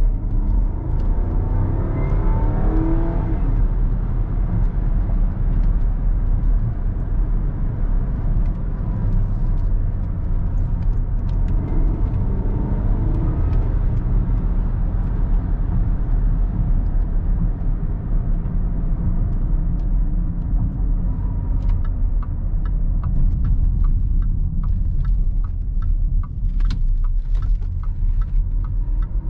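Range Rover L322's 5.0 supercharged V8 and road noise heard inside the cabin while driving: a deep, steady rumble, with the engine note rising and falling a couple of times. In the last several seconds there is a run of evenly spaced ticks.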